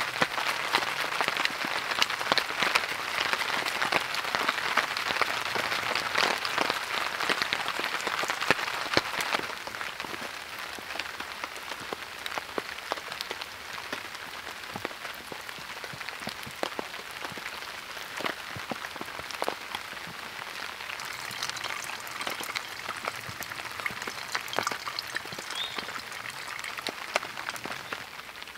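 Rain pattering on a tarp, a dense, even patter of drops that is louder for the first nine seconds or so and then eases a little.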